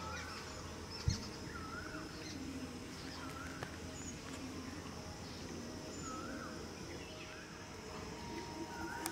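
Birds calling: a short call that rises and falls, repeated every second or two, with higher chirps from other birds over a steady background hum. One sharp low thump about a second in.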